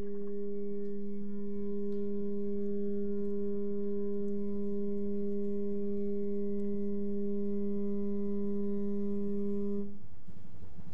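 Ship's horn sounding one long steady blast of about ten seconds, then cutting off near the end: the signal to release the racing pigeons from the boat.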